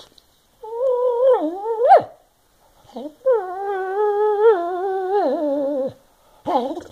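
Senior Boston Terrier/Basset Hound mix dog whining in drawn-out, talking-like complaints. First comes a call of about a second and a half that sweeps sharply up at its end, then, after a short sound, a longer call of nearly three seconds that steps down in pitch, and a brief call near the end.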